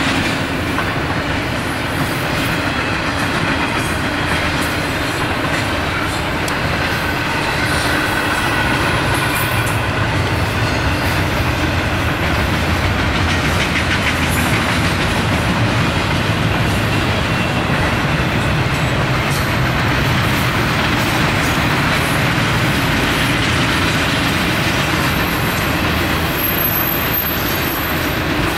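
Norfolk Southern intermodal freight train passing close by, with double-stack container cars followed by flatcars of highway trailers. The steel wheels roll on the rails in a steady, continuous rumble that grows slightly louder partway through.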